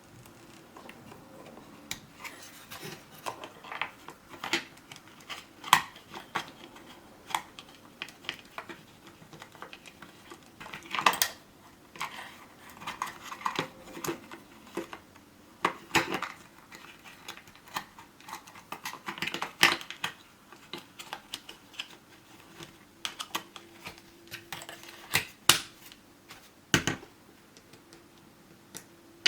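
Irregular plastic clicks, snaps and rattles as a toy gel ball blaster and its parts are handled.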